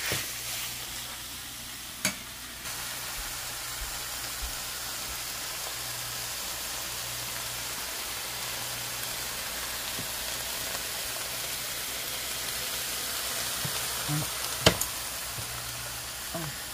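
Flaked tuna and chopped vegetables sizzling steadily as they sauté in a frying pan. Two sharp knocks, about two seconds in and again near the end, the second the louder.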